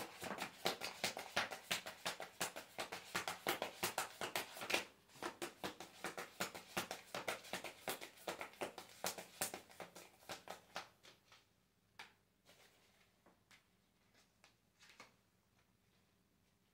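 A tarot deck being shuffled by hand: a rapid run of light card clicks and flaps for about eleven seconds, then a few scattered taps as the shuffling slows and stops.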